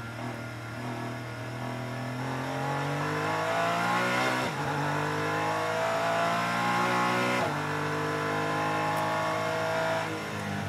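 Porsche 718 Cayman GT4 Clubsport's flat-six race engine heard from inside the cockpit, accelerating hard at full throttle: it climbs in pitch through second gear, upshifts to third about four and a half seconds in, climbs again, and upshifts to fourth about seven and a half seconds in. Near the end the driver lifts off and the engine drops in level.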